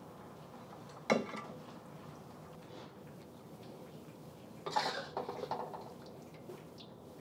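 Metal spatula clinking against a steel wok as cooked chicken wings are lifted out onto a platter: one sharp clink about a second in, then a short cluster of lighter clinks around five seconds.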